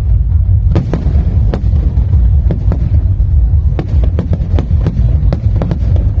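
Aerial fireworks going off: irregular sharp cracks and bangs, about two a second, over a steady deep rumble.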